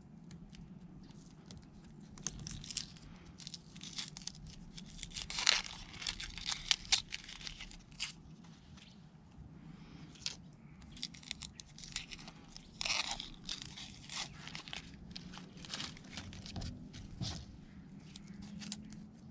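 Dry papery onion skin peeled off by hand, crackling and tearing in irregular bursts.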